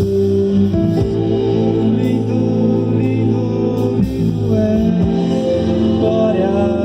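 Live gospel worship band playing: electric guitar, bass and keyboard holding chords over a steady bass, with a voice singing.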